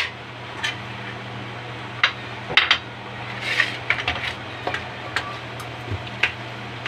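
Scattered clinks and knocks of kitchenware: a metal spoon and a stainless steel mixing bowl being handled on a countertop, with a short scrape about three and a half seconds in.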